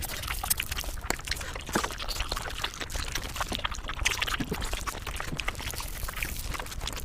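Close-miked eating sounds, chewing and mouth noises, sped up about five times, so they come as a dense, unbroken run of quick wet-sounding clicks and smacks.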